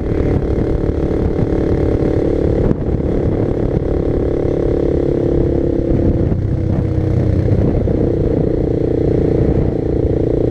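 Honda CB300R single-cylinder motorcycle riding at steady speed, its engine note held over a low rumble. There is a brief dip about two and a half seconds in, and the pitch shifts about six seconds in.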